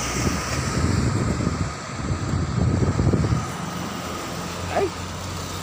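City road traffic passing: a low rumble of cars, buses and a truck that swells twice and then settles.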